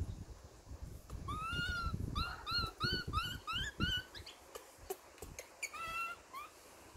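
Baby macaque giving a rapid run of short, high, arching squeaks, about four a second, followed by a couple more near the end. Low bumps and rustling come from it moving about on the carpet.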